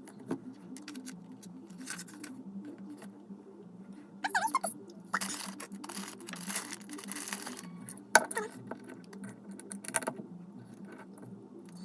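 Small plastic Lego pieces clicking and rattling as they are handled and snapped together, with a stretch of rustling about five seconds in.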